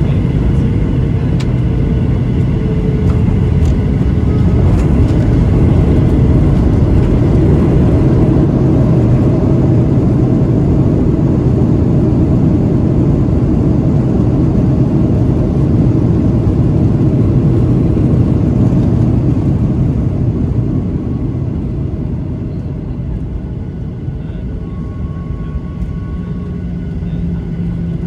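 Cabin sound of a Boeing 737-800's CFM56-7B engines in reverse thrust during the landing rollout, mixed with runway rumble: a loud, steady rumbling roar that eases off about twenty seconds in as the jet slows, leaving a lower steady hum near the end.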